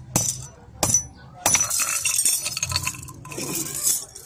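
Two hammer blows, less than a second apart, on an iron chain link held on a metal disc, each with a short metallic ring, then the chain's links clinking and rattling together as the chain is handled.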